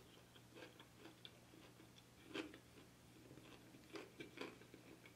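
Faint mouth sounds of a man chewing a boneless chicken wing with his lips closed: soft, scattered wet clicks, one a little louder about halfway through.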